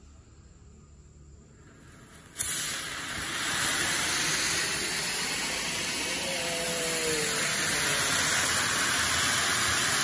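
Firework fountain catching about two and a half seconds in with a sudden start, then spraying sparks with a loud, steady hiss.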